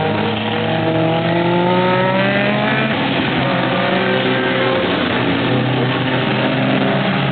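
Super Seven race cars' engines running hard on track, with one engine note rising steadily in pitch as it accelerates between about half a second and three seconds in.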